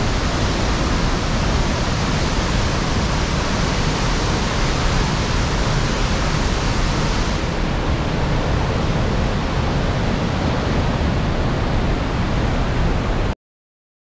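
Palovit Waterfall and its stream rushing over rocks: a loud, steady roar of falling water with a deep rumble. It softens slightly at the top about halfway through and cuts off abruptly near the end.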